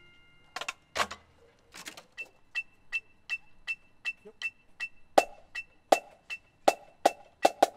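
Electronic metronome ticking steadily at about two and a half beats a second, a short high click on each beat. Sharp drumstick clicks join on every other beat about five seconds in and come faster near the end, counting off the next exercise.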